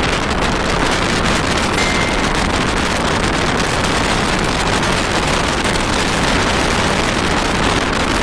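Steady rush of wind on the microphone mixed with the road noise of a moving vehicle, without a break.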